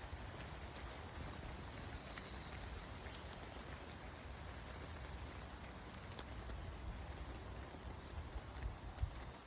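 Steady rain falling, with scattered single drops ticking now and then and a low rumble underneath. A low thump comes shortly before the end.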